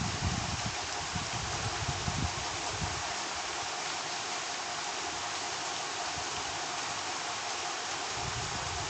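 Steady background hiss, with soft low bumps and rustles in the first three seconds and again near the end.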